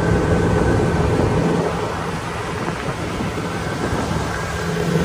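Boat's outboard motor running steadily under way, with wind rushing and buffeting over the microphone.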